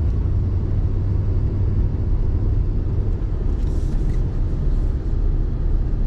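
Steady low rumble of a pickup truck's engine and tyres on the road, heard from inside the cab while driving.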